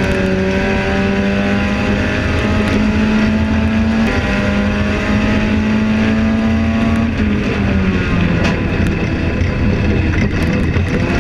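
Enduro race car engine heard from inside the caged cockpit, running hard and steady with its pitch creeping slowly upward. About seven seconds in the revs drop, then hold steady at a lower pitch.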